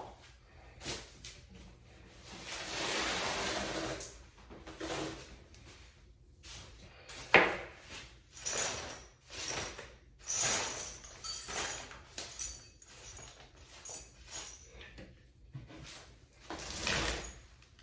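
Flat-pack furniture parts being handled and fitted: a panel scraping as it slides into place, then scattered clicks and knocks, with one sharp knock about seven seconds in.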